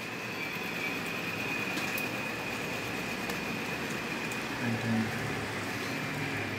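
Steady background noise with a faint high-pitched whine, over which a few faint clicks and taps come from a replacement Lenovo G580 laptop keyboard being pressed and fitted into the laptop's frame.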